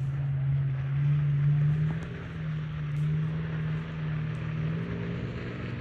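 Off-road SUV engines running at low revs under load, a steady low drone that rises and eases a little, as one truck tows another up a muddy trail.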